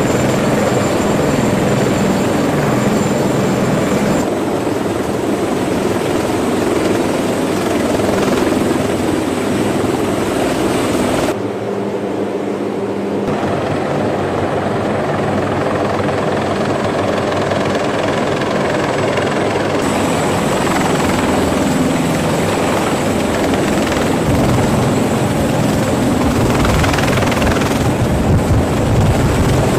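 CH-53 heavy-lift helicopter hovering close by, with loud, continuous rotor and turbine noise. The sound changes abruptly several times, as between separate recordings.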